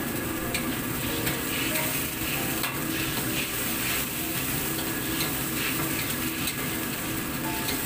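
A spatula stirring and scraping eggplant and fish in adobo sauce in a wok, over a steady sizzle. There is a scraping stroke about once or twice a second.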